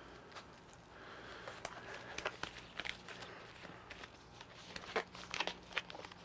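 Black disposable gloves being pulled on and worked down over the fingers: a run of small, sharp snaps and crinkles from the stretched glove material, busiest from about a second and a half in.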